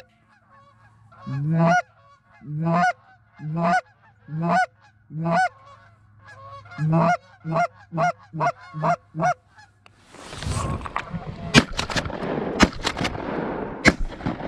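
Geese honking: about a dozen loud, separate honks, the last few in quick succession. Then rustling and several sharp knocks as the hunter throws open the layout blind and raises the shotgun.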